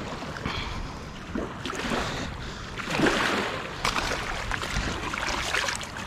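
Shallow river water splashing and sloshing as a fish is dropped into a keepnet at the water's edge, then hands are rinsed in the water. The splashing swells about halfway through and comes in uneven surges near the end.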